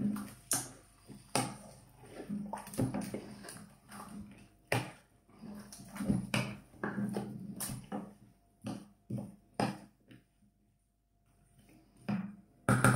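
A wooden spoon stirring chopped vegetables in kefir in a stainless steel saucepan: irregular knocks and scrapes of the spoon against the pot, with wet sloshing of the mix. There is a short pause near the end, then a louder knock.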